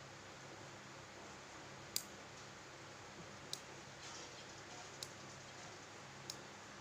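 Nail clipper snapping through fingernails: four sharp clicks roughly a second and a half apart, the first the loudest, over a faint hiss.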